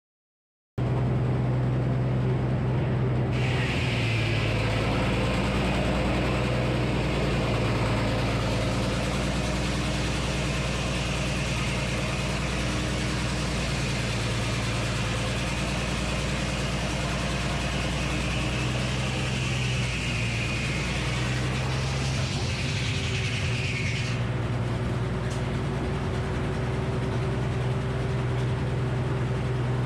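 Frick circular sawmill running, starting suddenly about a second in: a steady low engine drone throughout, with a high singing tone from the blade cutting through a maple log for about twenty seconds, which stops near the end as the blade comes out of the cut and spins free.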